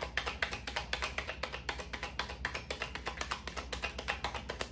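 A tarot deck being shuffled by hand: a quick, even run of light card clicks, several a second, as cards slip from one hand to the other.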